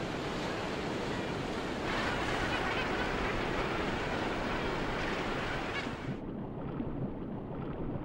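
Surf washing and breaking, a little louder from about two seconds in. About six seconds in it turns dull and muffled, as heard from under the water.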